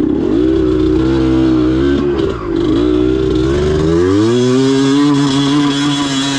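Yamaha DT 180's two-stroke single-cylinder engine pulling the bike along at part throttle; the revs drop briefly about two seconds in, then climb and hold higher.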